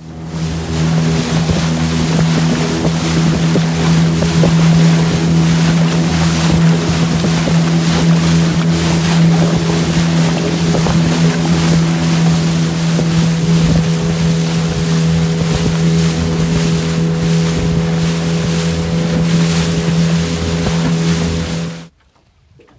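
Small boat's outboard motor running steadily under way, a constant engine hum under the rush of water splashing off the hull and wind buffeting the microphone. It cuts off abruptly near the end.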